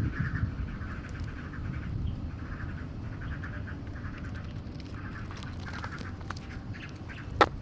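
Black-crested bulbul nestlings calling in rapid, buzzy bursts of chirps, again and again. A single sharp knock comes near the end.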